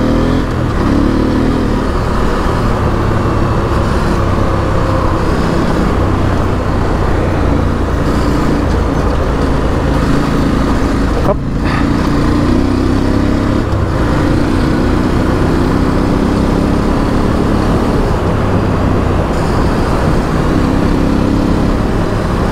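KTM 890 Adventure R's parallel-twin engine running under way, its pitch rising and falling as the throttle changes, over steady wind and road noise. The sound briefly drops out about eleven seconds in.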